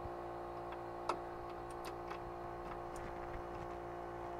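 A few light metallic clicks of a wrench working the packing nuts on a boat's propeller-shaft stuffing box, the sharpest about a second in, over a steady engine-room machinery hum made of several fixed tones.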